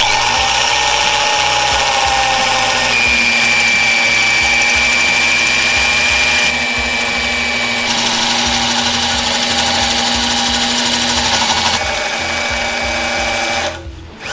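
Corded electric drill running with a hole saw pressed against a metal exhaust pipe, a steady whine with a rubbing scrape. The saw is not cutting into the metal. The drill stops near the end.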